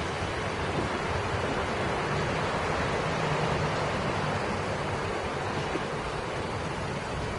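Steady rush of road traffic, with trucks and cars passing on a road.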